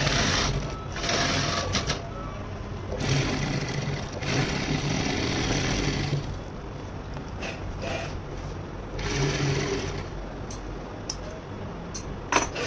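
Industrial sewing machine stitching leather and cotton glove pieces in several short runs, starting and stopping, with the motor humming through each run. A sharp click comes near the end.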